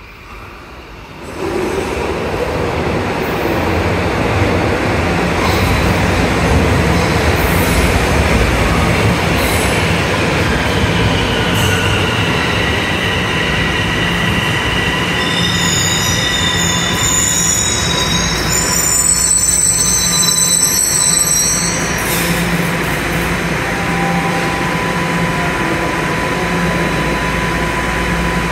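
Bombardier Toronto Rocket subway train entering the station. Its rumble rises sharply about a second and a half in, then it squeals in several high tones as it slows for a while in the middle. After the squealing ends it settles to a steady hum with a thin whine.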